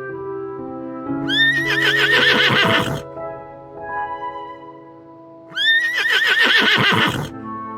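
A horse neighing twice, each whinny lasting about two seconds, with a pitch that rises and then quavers, over light background music.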